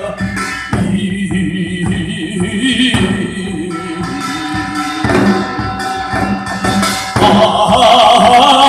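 Music with a singing voice over drumming. It becomes fuller and louder about seven seconds in.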